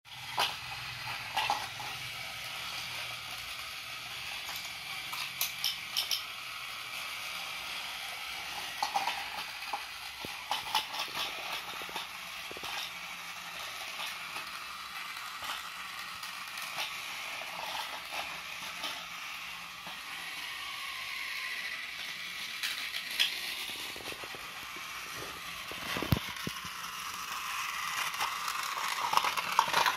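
Battery-powered Tomy Thomas toy train's small electric motor and gearbox whirring steadily as it runs along plastic track, with frequent sharp clicks and clacks of plastic parts.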